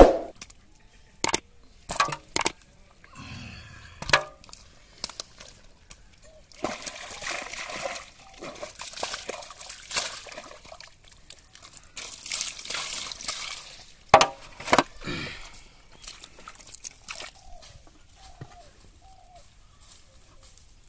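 Splashing and sloshing in shallow muddy water as feet and hands move through it, with several sharp slaps near the start and two more about two-thirds of the way in.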